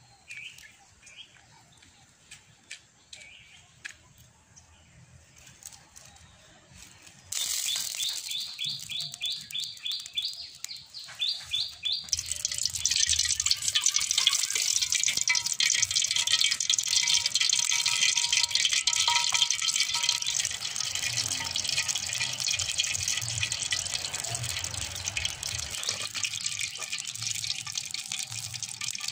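Cooking oil poured from a plastic bottle into a metal wok over a wood fire. A quick, regular glugging starts suddenly about seven seconds in, then gives way to a loud, steady hiss of liquid.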